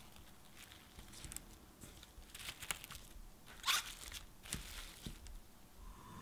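Plastic cling wrap crinkling and crackling as it is stretched over shaped bagel dough and pressed down around it, covering the bagels for their 20-minute rise. It comes as a series of short crackles, the loudest about halfway through.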